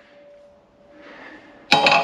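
Two sharp metal-on-metal strikes in quick succession near the end, each leaving a ringing tone, as a seized part of a Bristol Hercules reduction gear is worked loose under a press. The ring of an earlier strike fades at the start.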